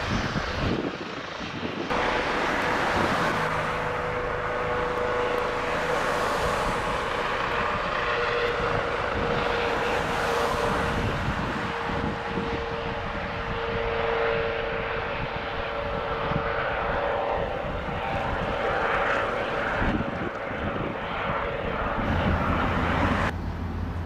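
Police helicopter's turbine engine and rotor running steadily as it flies, with a steady whine over the rotor noise. The sound changes abruptly about two seconds in and again near the end.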